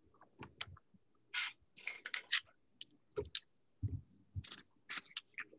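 Handling noise on a laptop's open microphone: irregular clicks and short rustling scrapes, with a couple of low thumps around four seconds in.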